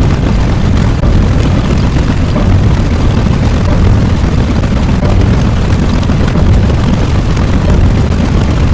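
A loud, continuous low rumbling sound effect.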